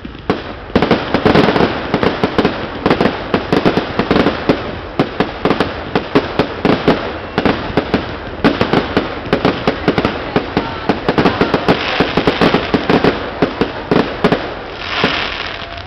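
Fireworks display: a rapid barrage of sharp bangs and crackles, several a second, that stops just before the end.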